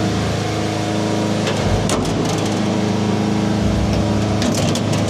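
Steady electric machinery hum inside a wind turbine tower's service lift, with a few sharp metallic clicks about two seconds in and again near the end, like harness clips being locked on.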